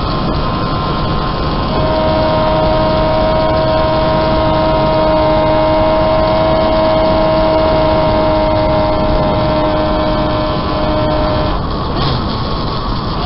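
Home-built three-cylinder engine of a 195cc Gillette special racing motorcycle running hard at steady high revs, heard on board over heavy wind rush. The steady engine note breaks off near the end.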